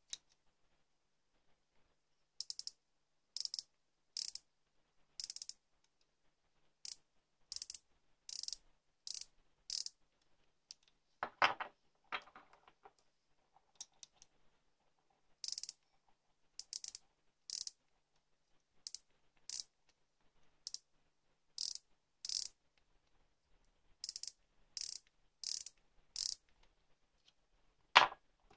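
Ratchet stop on the thimble of a digital outside micrometer clicking in short runs, roughly one to two clicks a second, as the spindle is closed onto small turned steel pins; the clicking is the ratchet slipping at its set measuring force. Two louder knocks break in, one about eleven seconds in and the loudest near the end.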